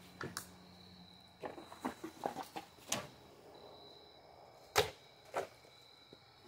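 Scattered footsteps, clicks and knocks on grass strewn with cans and bottles, with one sharp knock a little before five seconds in, over a steady high chirr of crickets.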